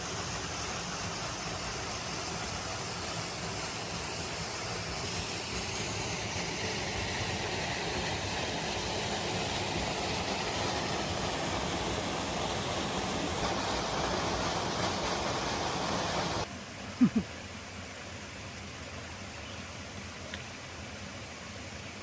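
Steady rush of water from a waterfall cascade. About sixteen seconds in it drops suddenly to a quieter rush, and a brief sharp sound follows.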